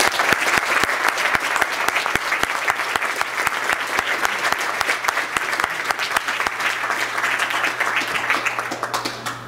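Audience applauding in a hall, a dense patter of many hands clapping that dies away near the end.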